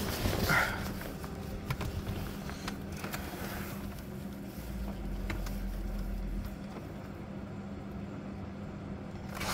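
Faint clicks and a steady low hum in a BMW E36's cabin with the ignition switched on and the engine not yet running. A low rumble comes in about four and a half seconds in and stops two seconds later.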